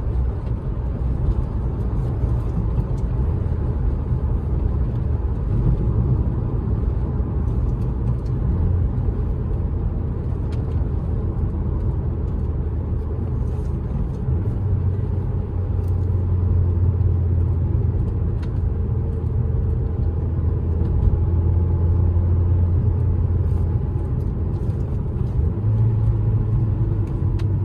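Ford SVT Focus's four-cylinder engine and tyre noise heard from inside the cabin while driving in town: a steady low drone that grows stronger for several seconds in the middle.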